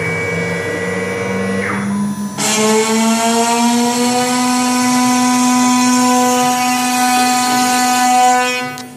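CNC router spindle running with a steady whine as it engraves laminate. A little over two seconds in, a louder cutting noise joins the whine and the pitch rises slightly; the sound drops off sharply near the end.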